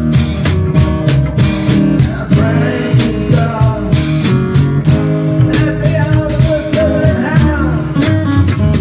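Band music with guitar over a steady drum beat. A wavering lead melody comes in about two seconds in and again past the middle.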